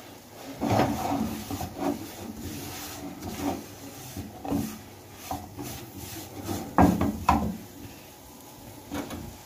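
Silicone spatula scraping and stirring a dry flour-and-ghee mixture around a frying pan in irregular strokes, with louder scrapes about a second in and around seven seconds. The flour is being worked into the fat as the roux for a béchamel.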